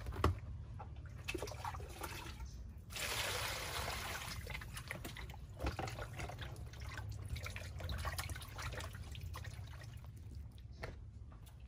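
Hands swishing and splashing in water in a plastic basin, washing something by hand. There is one sharp knock just as it begins and a louder stretch of splashing about three seconds in.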